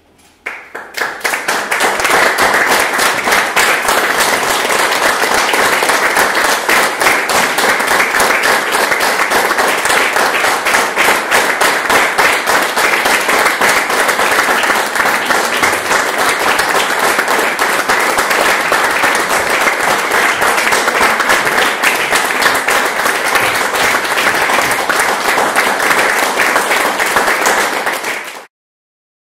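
Audience applauding at the end of a stage performance: the clapping starts after a silence, swells over the first couple of seconds into steady, dense applause, and cuts off abruptly near the end.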